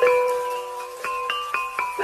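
Background music: a melody of struck, bell-like mallet-percussion notes, each ringing and fading before the next.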